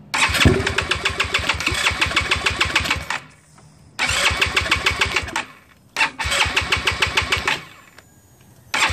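GY6 scooter's four-stroke single-cylinder engine cranking on its electric starter in repeated tries, in evenly pulsing bursts of about three seconds, a second and a half, and a second and a half, with a fourth starting near the end. It turns over without catching: a hard start that the owner thinks may come from a flooded float bowl.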